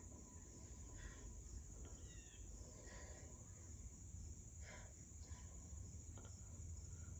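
Near silence: faint television audio heard through the set's speaker, with a steady high-pitched whine and low hum under a few soft, barely audible sounds.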